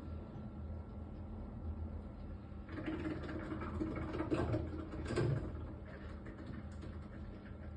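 Worcester 24i Junior gas combi boiler running with a steady low hum. About a third of the way in, a rough hissing and crackling noise starts, swells twice, then eases off near the end.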